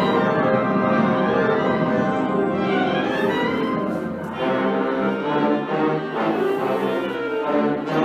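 School concert band playing: full sustained brass and woodwind chords, then, after a short dip about four seconds in, shorter separated chords.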